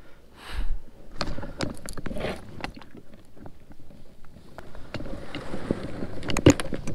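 Irregular knocks, clicks and scuffs from climbing onto a fishing kayak beached on gravel at the water's edge: feet and hands bumping the plastic hull and deck gear, with brief rustles. The loudest knock comes near the end.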